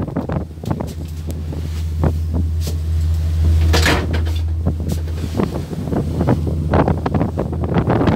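Steady low drone of the ship's engines, with wind buffeting the microphone and scattered knocks and clunks; a brief louder rush of noise about four seconds in.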